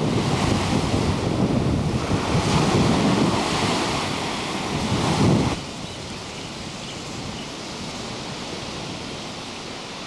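Ocean surf with wind buffeting the microphone, cutting off abruptly about five and a half seconds in to a much quieter steady hiss.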